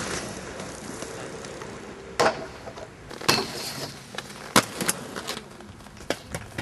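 Inline skate wheels rolling on asphalt, with several sharp clacks of skates hitting the ground. The loudest clack comes a little past halfway.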